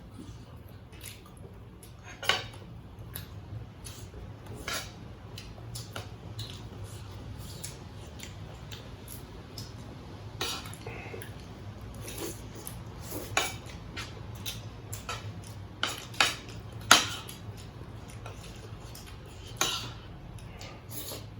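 Cutlery clinking and scraping on plates while eating, in scattered sharp clicks over a low steady hum. Several louder clinks come in the second half.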